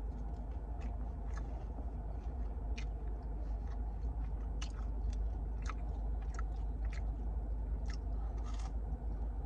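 A person chewing and biting into French toast sticks, soft irregular chewing clicks spread through, over a steady low hum.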